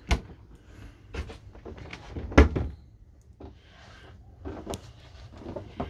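Wooden galley cupboard doors being shut by hand: a few sharp knocks and thuds, the loudest about two and a half seconds in.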